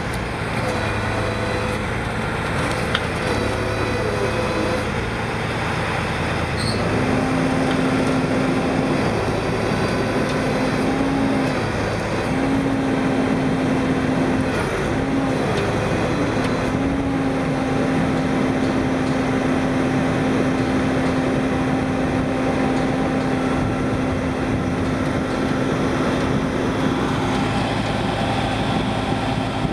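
Heavy tri-axle tow truck's diesel engine running steadily. A steady hum joins in about seven seconds in, breaks off briefly a few times, then holds.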